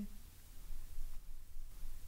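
Quiet room tone: a steady low hum with faint hiss.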